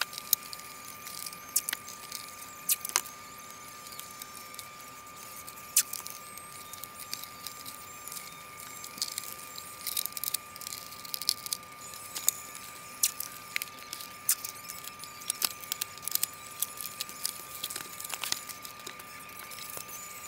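Irregular sharp clicks and crinkly rustling of hands handling small thin plastic parts against a model airplane wing's plastic film covering, over a faint steady high tone.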